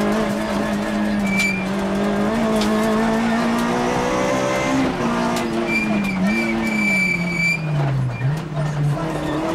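Rally car engine heard from inside the cabin at high revs, its pitch climbing slightly, then falling over about two seconds as the car slows, and picking up again near the end. A thin, high squeal sounds for about a second and a half, some six seconds in.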